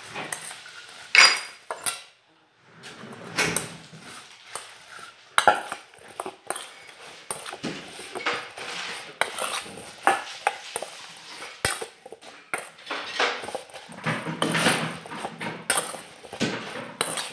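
A spoon clinking and scraping against a stainless steel mixing bowl while sliced apples are stirred, a steady run of irregular clatters with a short pause about two seconds in.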